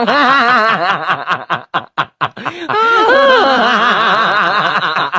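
A person laughing in repeated short bursts of chuckling, broken up with brief gaps about two seconds in before a longer run of laughter.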